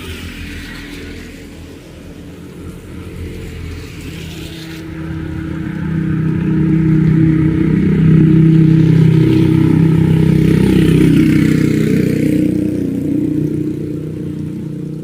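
A motor vehicle's engine passing close by, swelling from about five seconds in, loudest in the middle, then fading away.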